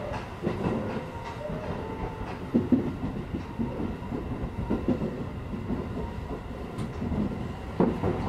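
Shin-Keisei electric train heard from inside the cab while running, a steady rumble with irregular knocks of wheels over rail joints. Near the end there is a sudden rush as an oncoming train passes on the next track.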